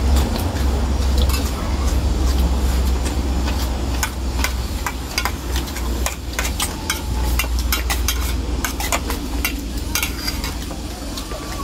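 Spoons clinking and scraping against steel bowls and plates as several people eat, many irregular small sharp clicks over a steady low rumble.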